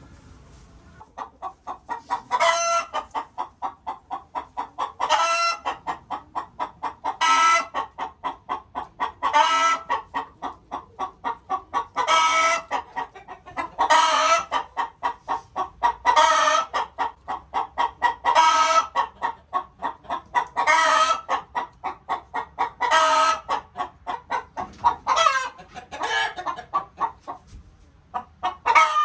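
A hen cackling close by: a fast, steady run of clucks broken about every two seconds by a loud, higher squawk, starting about a second in.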